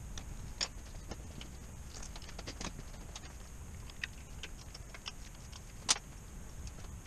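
Irregular light metallic clicks and taps of hand tools and parts against the Midland air compressor being reassembled, with two sharper clicks about half a second in and near the end, over a low steady hum.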